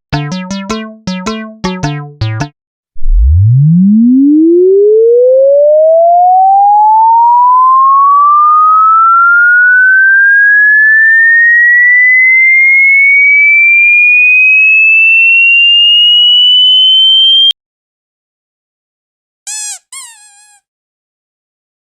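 An electronic sine-wave frequency sweep: a single loud pure tone rising smoothly from a very low hum to a high whistle over about fourteen seconds, then cutting off suddenly. A few short pitched notes come before it, and brief high squeaks follow about two seconds after it stops.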